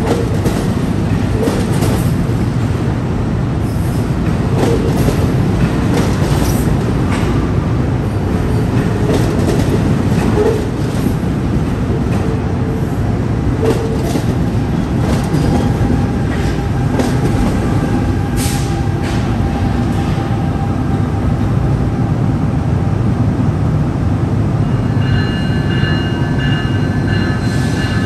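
Passenger train running on the track: a loud, steady rumble with scattered clicks and rattles from the wheels. A few steady high tones come in near the end.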